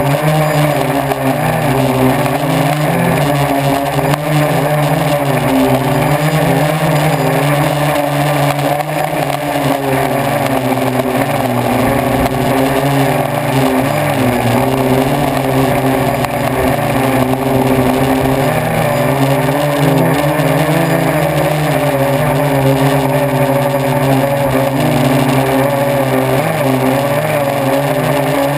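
Radio-controlled model jet's motor and fan running steadily at high power, heard from a camera on the aircraft in flight, over a wind rush. The drone holds a nearly constant pitch with slight wavering.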